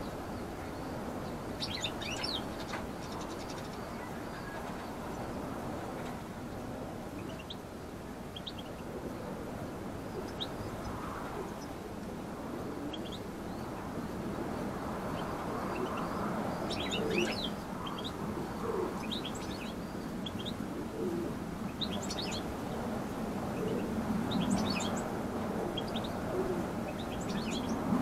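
Goldfinches chirping: short, high twittering calls at irregular intervals, over a steady low background noise.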